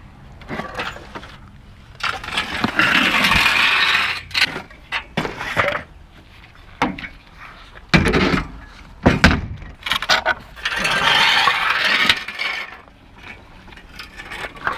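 Metal bed rails being handled and loaded as scrap: two long metal-on-metal scrapes of a couple of seconds each, with several sharp clanks and thuds between them.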